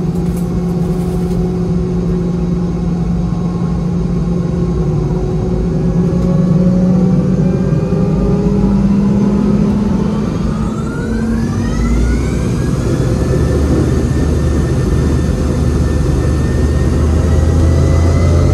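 Boeing 717-200's rear-mounted Rolls-Royce BR715 turbofans heard from the cabin close to the engine, running at taxi power. About ten seconds in they spool up with a rising whine to takeoff thrust, settling into a steady high whine with a growing low rumble as the takeoff roll begins.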